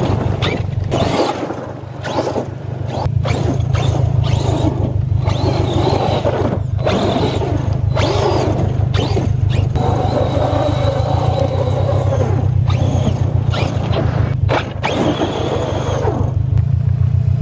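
Radio-controlled monster truck's motor revving up and down in repeated bursts as the truck drifts, its pitch rising and falling and cutting out between throttle blips, over a steady low hum.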